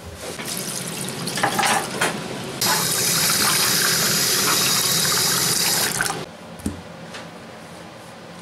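Kitchen tap running into the cat's water bowl in a stainless steel sink, filling it. The flow is at its strongest from about two and a half seconds in and cuts off about six seconds in, followed by a single knock.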